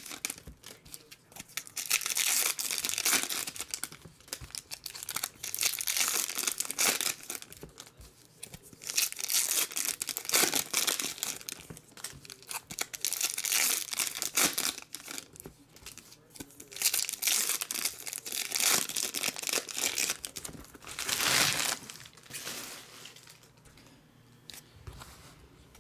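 Foil trading-card pack wrappers being torn open and crinkled by hand, in repeated bursts a few seconds apart, quieter near the end.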